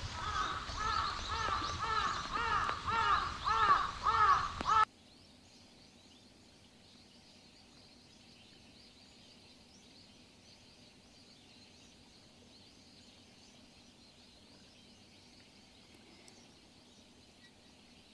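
A crow cawing over and over, about two caws a second. About five seconds in it cuts off suddenly, leaving a faint background with small high bird chirps.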